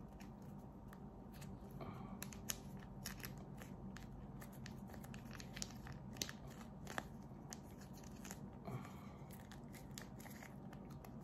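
Plastic seasoning sachet crinkling and crackling faintly in the fingers as it is squeezed out, a scatter of small sharp crackles.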